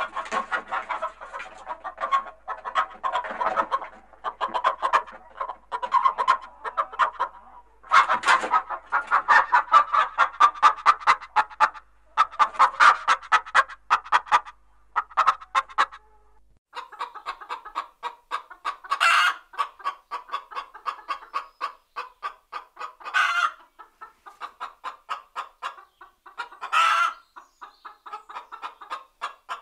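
Hens clucking in quick, continuous runs of short calls. About halfway through, a background hum drops out and the clucking continues, broken by a few louder calls several seconds apart.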